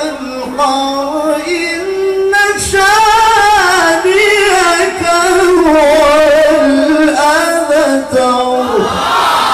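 Man's melodic Qur'an recitation (tilawah) in a high, sung voice through a microphone: long ornamented phrases with held, wavering notes. The phrase ends near the end, and the audience begins calling out in approval.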